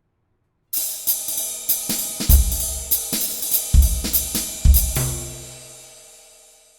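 Short closing music jingle on drum kit and cymbals, with several heavy bass-drum hits, ending on a held chord that fades away.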